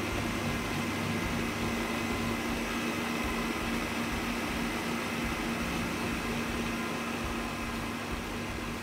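Electric stand mixer running steadily with its wire whisk beating butter and powdered sugar into a cream.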